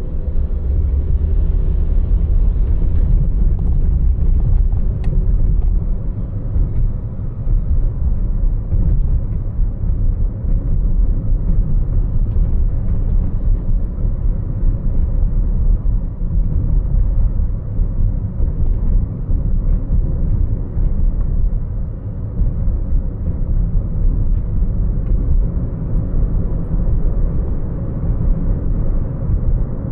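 A car driving: steady low road and engine rumble, with no sudden events standing out.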